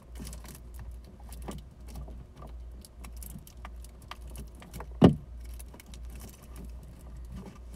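Pliers and wiring handled while crimping a red butt connector onto a wire: light metallic clicks and rustling, with one sharp click about five seconds in, over a steady low hum.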